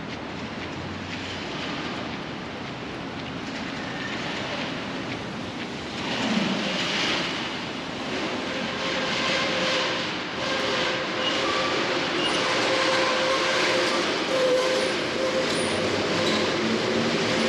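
Rain on a wet city street while a large vehicle passes close by with a steady whine, growing louder about six seconds in.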